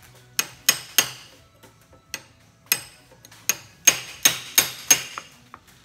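Ball peen hammer striking a steel punch set in the eye of a clamped brass hammer head, driving out the old wooden handle. About ten sharp metallic taps, each ringing briefly: three quick ones at the start, a few spaced ones, then a run of five near the end.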